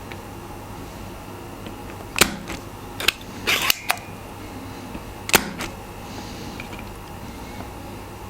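Several sharp clicks and clacks of tools being handled while desoldering keyboard switches, the loudest about two seconds in and about five seconds in, with a short clattering run around three and a half seconds in, over a steady low hum.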